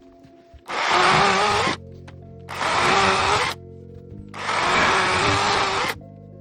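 Greenworks cordless electric chainsaw running in three short bursts of a second or so each, its motor whining. Background music plays underneath.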